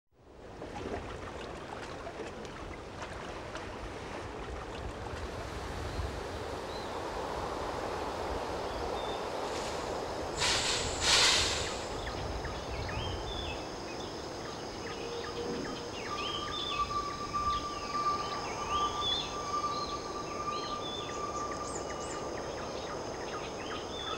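Tropical rainforest ambience fading in: a steady insect drone with high steady tones and scattered bird chirps. A louder noisy burst lasts about a second around ten seconds in. A long, steady whistle-like tone runs from about two-thirds of the way through.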